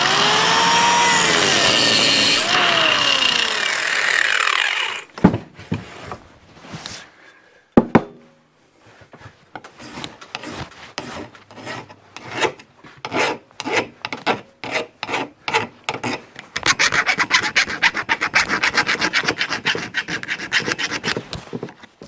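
Angle grinder cutting through a steel PTO driveshaft tube, its pitch wavering under load, until it stops about five seconds in. After a couple of knocks, a hand file scrapes back and forth on the freshly cut end of the tube, in quick, even strokes near the end.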